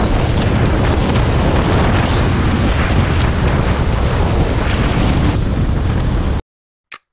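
Heavy, steady wind noise buffeting a helmet-mounted camera's microphone while riding at road speed. It cuts off suddenly about six seconds in, followed by a short click near the end.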